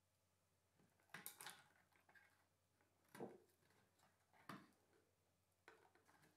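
Faint light clicks and taps of laser-cut balsa parts being handled and pressed into place on a balsa fuselage, four small clusters spread a second or so apart, over near silence.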